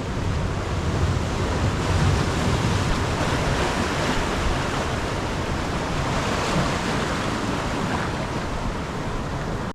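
Pacific Ocean surf washing onto the shore, a steady rushing noise without a break.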